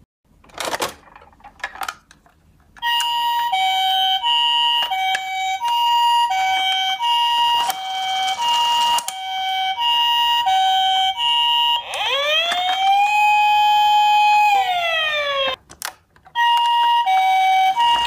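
Toy ambulance's electronic siren playing the Japanese two-tone hi-lo 'pee-po' call, the pitch switching about every two-thirds of a second. It breaks into a rising, held and falling wail for about three seconds, then returns to the hi-lo call. Before the siren starts there are a couple of brief clattering sounds.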